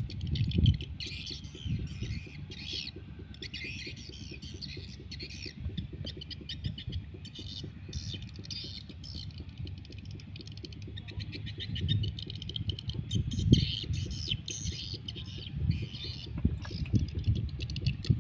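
Birds chirping again and again in short high bursts, over low thumps and rustling close to the microphone.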